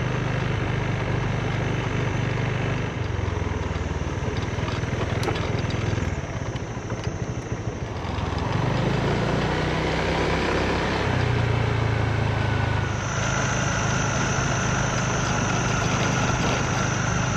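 Small motor scooter engine running on the move. It eases off about six seconds in and picks up again about two seconds later.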